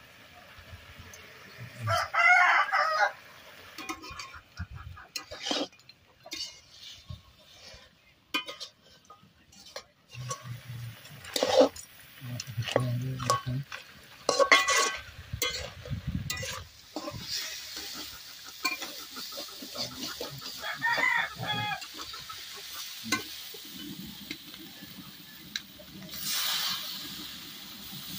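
Metal spatula stirring and scraping pork pieces in a metal kadai over a wood fire, with clanks of the blade on the pan and the meat sizzling. A rooster crows twice, about 2 seconds in and again past the middle. Near the end comes a louder burst of hissing as water is poured into the hot pan.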